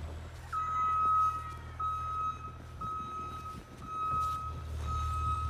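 A vehicle's electronic warning beeper sounding over an engine's low idle, one steady high beep about every second.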